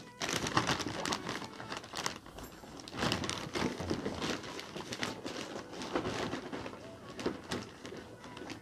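A plastic shopping bag rustling and crinkling as a hand rummages through it, with the light knocks of a cardboard box being handled.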